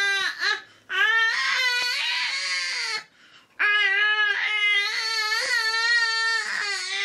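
Baby crying in long wails: a short cry, a wail of about two seconds, then after a brief breath a longer wail of over three seconds.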